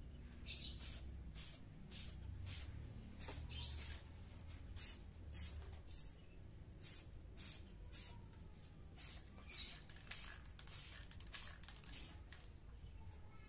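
Aerosol spray-paint can hissing in short repeated bursts, about two a second.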